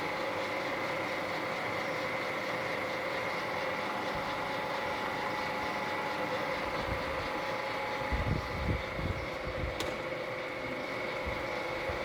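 ZMM CU 500 x 2000 engine lathe running steadily, its motor and headstock gearing giving a constant hum with a steady whine. A few low thumps come about two-thirds of the way through, followed by a single sharp click.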